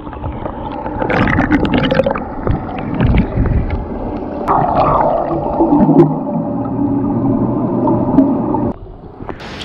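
Sound picked up by an action camera underwater in a swimming pool: muffled water noise with a steady hum, scattered clicks and bubbling, with a denser burst of bubbling about halfway through. Near the end it drops away briefly as the camera breaks the surface.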